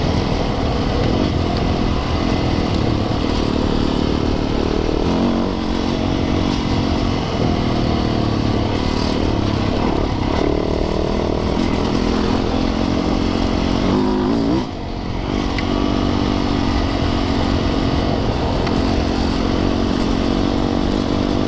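Yamaha YZ450FX dirt bike's single-cylinder four-stroke engine running under load on a trail ride, its pitch rising and falling with the throttle. About fourteen seconds in it revs up quickly, then drops briefly as the throttle is closed before picking up again.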